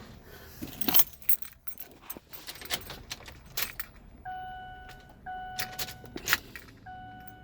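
Keys jangling and clicking as the ignition key is handled, then the truck's warning chime starts about four seconds in: a steady tone that repeats about once a second.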